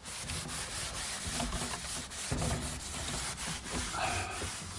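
A chalkboard being wiped with a hand-held eraser: steady back-and-forth rubbing strokes across the board's surface.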